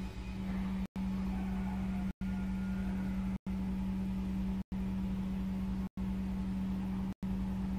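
A steady low hum, cut by short silent gaps about every second and a quarter.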